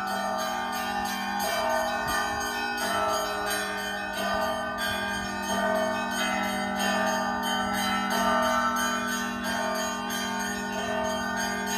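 Bells of Nikolai-do, the Orthodox cathedral in Tokyo, ringing: several bells sound together over a steady low hum, with a new stroke about every second and a half.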